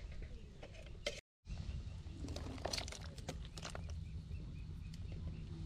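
Pot of bitter gourd and pork soup at a rolling boil: bubbling with scattered small pops over a low steady rumble. The sound cuts out completely for a moment about a second in.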